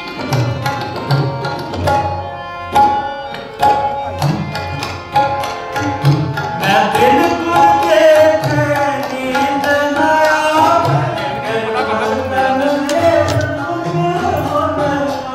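Sikh kirtan, devotional hymn music: a tabla plays a steady rhythm under sustained melodic notes, and a voice sings a wavering melody from about six seconds in.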